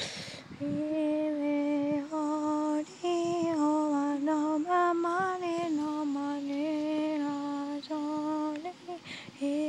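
A woman's voice singing a slow wordless tune in long held notes, each about a second, with short breaks between them.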